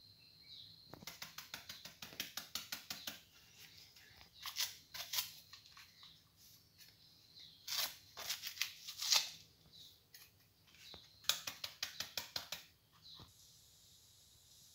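Kitchen knife finely chopping banana flower on a cutting board: quick, crisp strokes at about seven a second, in four bursts with short pauses between.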